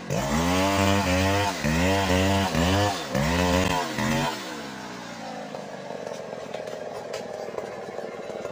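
Stihl chainsaw engine revving in repeated surges, rising and falling about once a second. Just over four seconds in it drops to a low, steady idle.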